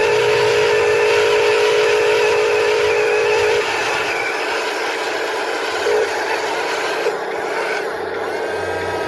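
Steady high electric whine from a radio-controlled construction model's motor. It cuts off suddenly about three and a half seconds in, leaving a steadier mechanical hiss with a couple of light knocks.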